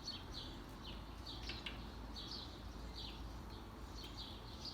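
A small bird chirping over and over, short high notes that drop in pitch, about three a second, over a low steady hum.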